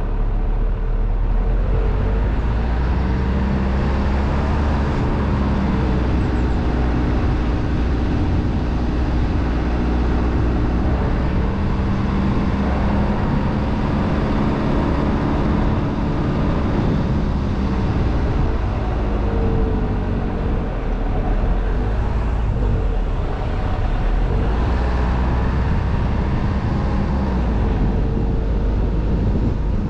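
Car driving along a road: engine and tyre noise, with the engine note rising and falling as the speed changes.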